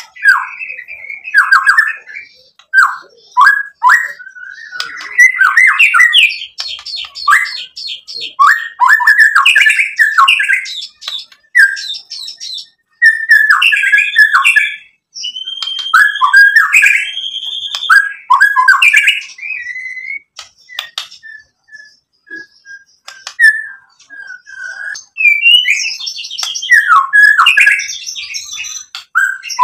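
White-rumped shama singing in loud, varied phrases of quick whistled notes that sweep downward, mixed with rapid clicking chatter. Around two-thirds of the way through, the song drops to a run of short, soft notes before the full phrases return.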